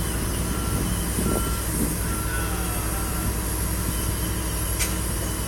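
Heavy machinery's engine running steadily with a low hum, with a few short high warning beeps in the first half and a sharp click near the end.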